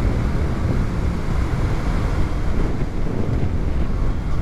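Steady wind rush on the microphone of a motorcycle riding at road speed, with the Kawasaki Z650's parallel-twin engine running beneath it.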